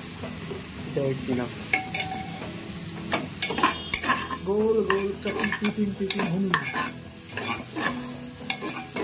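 Flat metal spatula stirring vegetables frying in oil in an aluminium pressure cooker: sizzling, with repeated scrapes and clicks of the spatula against the pot, thickest from about three seconds in.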